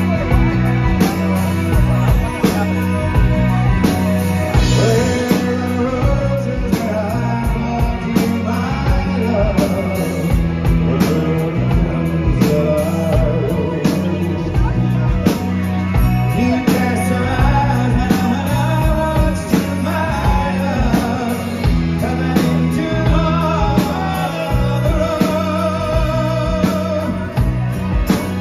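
Live rock band playing: a man singing over acoustic and electric guitars, bass and drums, with the room's echo.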